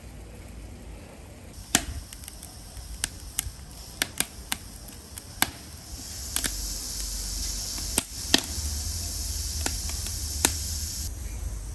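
Afghan kazan pressure cooker hissing steam from its lid valve. The hiss comes in about six seconds in and cuts off suddenly near the end, over a low rumble and scattered sharp clicks and cracks.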